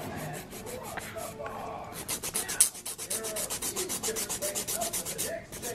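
Nail file filing fingernails in quick back-and-forth strokes, several a second, growing louder and more regular about two seconds in.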